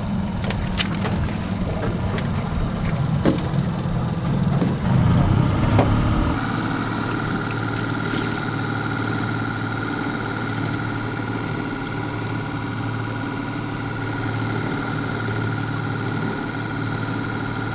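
Trolling fishing boat's motor running steadily, with a few sharp clicks and knocks in the first seconds. About six seconds in the deepest rumble drops away and a steady high whine carries on with the hum.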